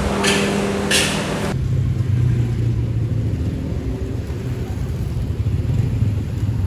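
Low, steady rumble of street traffic, after about a second and a half of indoor clatter over a steady hum that cuts off suddenly.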